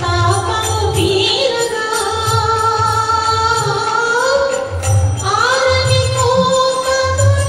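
Song with a voice holding long notes that glide up and down between pitches, over a low drum beat.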